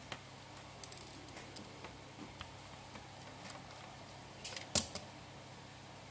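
Scattered small clicks and ticks of a precision screwdriver prying and scraping at an infrared thermometer's circuit board and plastic parts, with one sharper click a little before the end. A faint steady hum of fans runs underneath.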